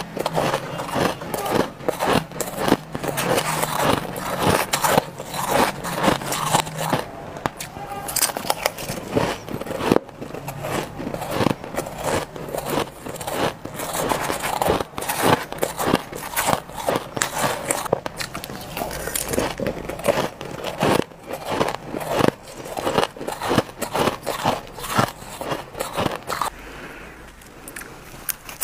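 Ice being bitten and chewed close to the microphone: a dense, irregular run of crisp crunches, several every second.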